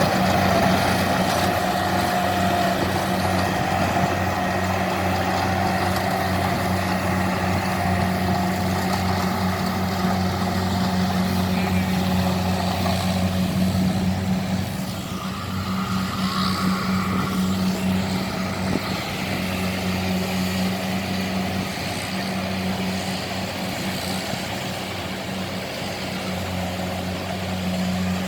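Kubota 70 rice combine harvester running steadily, its diesel engine giving a constant low drone. It eases slightly in loudness about halfway through.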